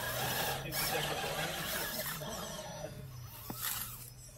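Electric RC rock crawler's small motor and gear drive whirring as it creeps slowly up a steep rock face under light throttle.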